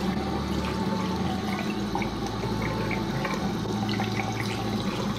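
Tap water running into a sink with splashing, as a face mask is rinsed off.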